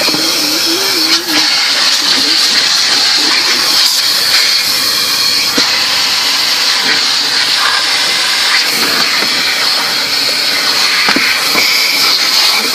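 Automatic car wash equipment running with a steady, loud hiss, heard from inside the car's cabin.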